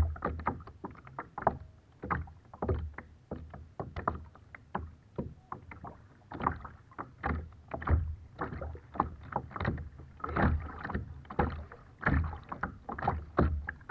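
Small choppy waves lapping and slapping against a kayak hull right at the microphone: a constant run of irregular splashes with a dull low knock every second or two.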